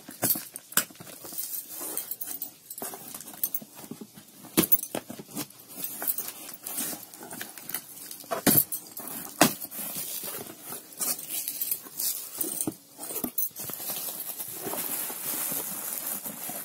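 Cardboard shipping box being opened by hand: scraping and tearing of cardboard flaps and tape with a scatter of sharp knocks, three louder ones in the middle. Near the end plastic bubble wrap rustles and crinkles as the packed products are handled.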